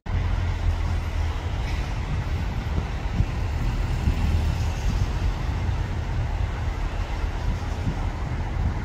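A narrowboat's diesel engine running steadily as the boat moves slowly along, a low, even rumble.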